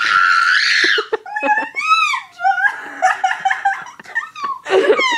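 Girls laughing hard: a loud high shriek at the start, then squealing, gasping bursts of laughter with pitch swooping up and down, and another loud squeal near the end.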